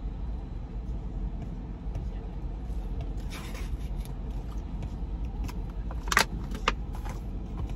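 Low steady rumble inside a car, with a plastic drink bottle being handled: a short crinkle about three seconds in and two sharp clicks near the end.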